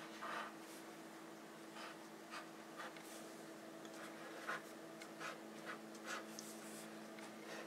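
White chalk ink marker tip writing on a vinyl chalkboard label: faint, irregular short scratching strokes as the letters are drawn.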